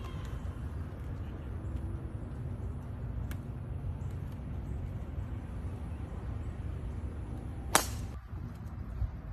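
A golf club striking a teed-up ball on a tee shot: one sharp crack about three-quarters of the way through, over a low, steady background rumble.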